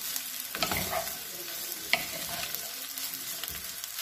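Wooden spatula stirring and scraping fried rice around a hot karahi, over a steady frying sizzle, with scattered scrapes and a sharp tap about two seconds in.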